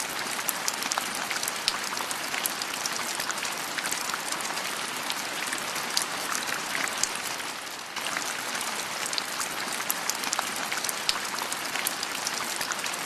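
Steady patter of water, an even hiss with many small sharp ticks, like drops or a spray hitting a surface; it dips briefly about eight seconds in.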